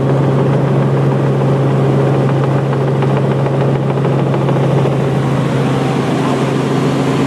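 Steady, loud drone of a helicopter's engine and rotor heard from inside the cabin in level flight, a deep hum with a noisy rush over it.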